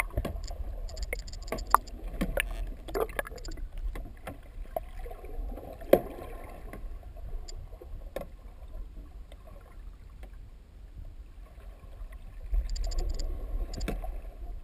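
Muffled sea-water sound heard through an underwater camera housing: a steady low rumble with water swishing that swells now and then, most near the end. Scattered clicks and knocks on the housing, the sharpest about six seconds in.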